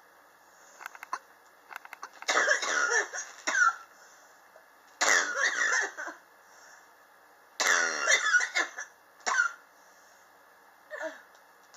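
A person coughing in three fits of about a second each, then two shorter single coughs, with a few faint clicks before the first fit. This is a chronic cough that has lasted for years, which the person blames on sharp temperature changes in their apartment.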